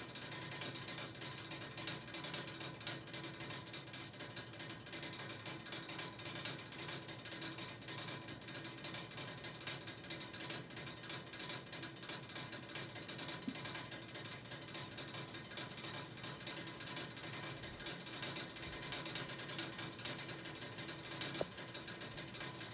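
Air conditioner outdoor unit running with an abnormal, continuous rapid rattling-clicking noise, like a ratchet, that does not let up.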